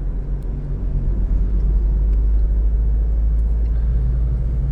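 A car driving: steady low road and engine rumble with a faint engine hum.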